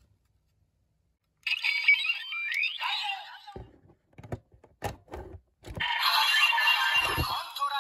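Electronic toy tones with a rising sweep. Then several sharp plastic clicks as the Lion Vistamp is fitted into the DX Destream Driver transformation belt toy. About six seconds in, the belt starts its electronic music.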